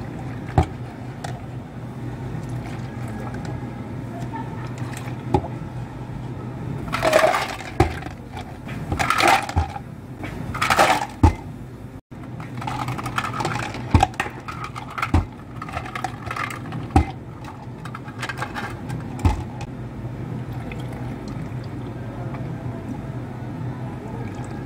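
Milk being poured into plastic cups, then ice tipped into three plastic cups in three loud bursts about two seconds apart. Scattered clicks and knocks of ice and cups follow, over a steady low hum.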